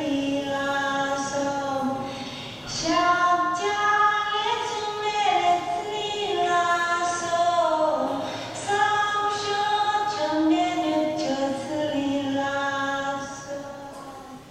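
Children's choir singing a slow melody in long held notes; the singing fades near the end.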